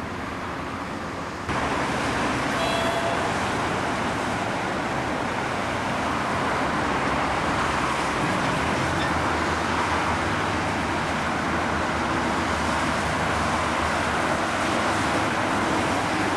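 Steady road traffic noise from a motorway, with a low steady hum underneath. It gets suddenly louder about a second and a half in.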